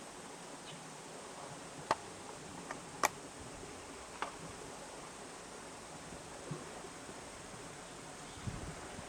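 Steady faint hiss of outdoor ambience, broken by a few sharp clicks or snaps about two, three and four seconds in, and soft low knocks near the end.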